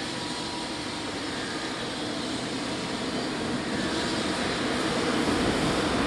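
Electric locomotive approaching along the track, a steady rushing rumble that grows gradually louder as it nears.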